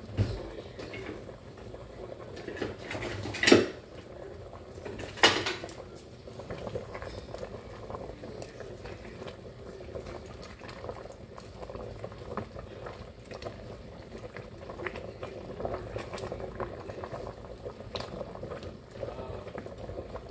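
Water boiling in a stainless steel pot of spaghetti, bubbling steadily, with two louder sudden noises about three and a half and five seconds in. Later a wooden spoon stirs the pasta, with light knocks against the pot.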